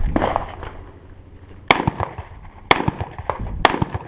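Rifle shots fired one at a time at a steady pace. Three sharp, loud reports come about a second apart in the second half, with echo trailing each one and fainter cracks in between.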